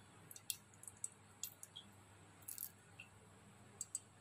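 Faint, scattered crackles and small pops of ghee heating in a hot pressure cooker.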